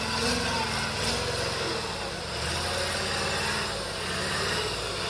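Engine of an old log-hauling truck running steadily as it moves under a full load of logs.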